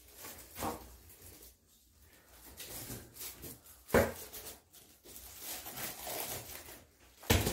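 Rustling and handling of items, with a sharp knock about four seconds in and another, louder one near the end.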